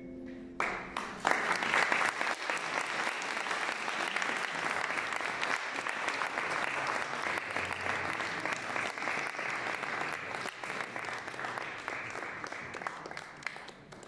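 The last held violin and piano note ends about half a second in, and audience applause breaks out, swells quickly, holds steady, then fades away near the end.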